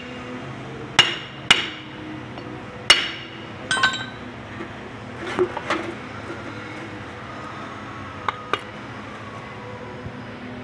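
Hammer blows on the metal final-drive housing of a Kubota Bultra B16 tractor's front axle, knocking it loose: three sharp ringing strikes within the first three seconds. They are followed by several lighter metallic clinks and knocks as the housing comes apart.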